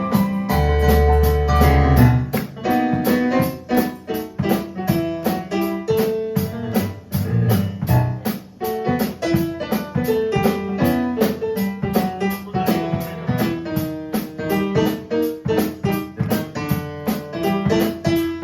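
Live band music: an electric keyboard playing a piano part over a drum kit keeping a steady beat on the cymbals.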